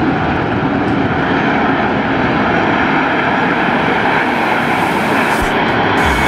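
Steady jet noise from a formation of ten Aermacchi MB-339 jet trainers flying by, their engines blending into one even rushing sound.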